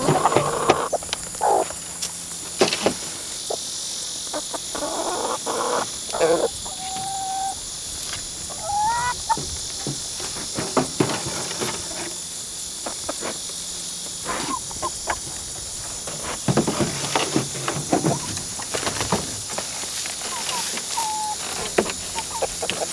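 A flock of laying hens clucking, with short single-pitched and rising calls now and then, among scattered clicks and knocks.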